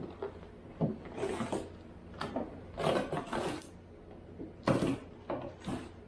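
Irregular handling noises: a string of short knocks, scrapes and rustles as things are moved about on a work table, with a low steady hum underneath.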